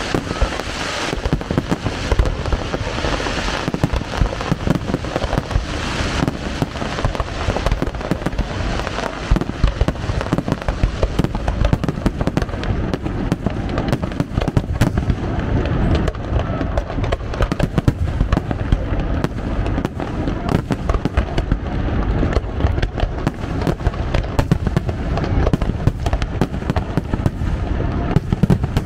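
Fireworks display: a dense, continuous barrage of aerial shell bursts, booms and crackles coming in rapid, overlapping succession, with a brighter hiss and crackle over the first several seconds.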